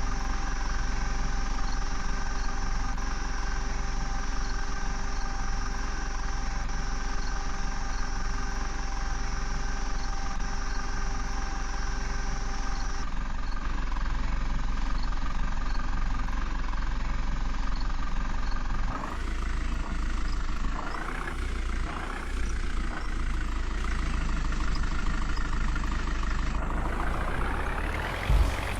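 Diesel engines of a JCB backhoe loader and tractors running steadily. The sound turns rougher and more uneven about two-thirds of the way through and rises in a surge near the end.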